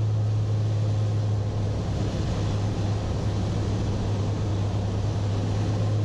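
1952 Beechcraft Bonanza's piston engine and propeller droning steadily in flight, heard inside the cockpit as a constant low hum with cabin noise over it.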